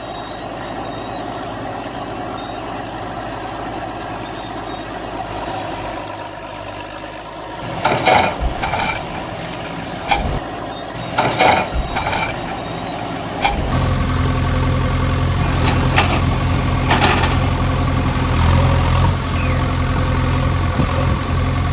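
A steady hum, then several clattering knocks in the middle. About halfway through, a steady engine idling sound starts and keeps running.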